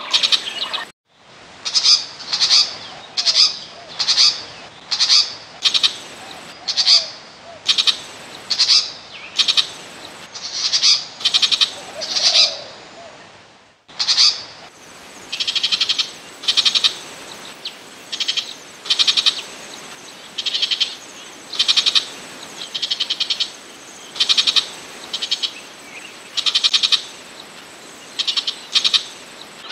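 Burmese shrike giving a long series of short, harsh calls, about one a second, from a decoy-call recording. It cuts out briefly about a second in and again near the middle before the calls resume.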